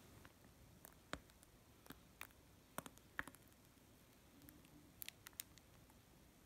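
Near silence, broken by a dozen or so faint, short clicks scattered through it, several close together about five seconds in.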